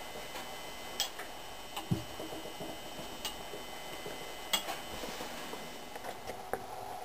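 A few irregular light clicks and one low knock from a small milling machine's table being cranked by its handwheels, over a faint steady hum.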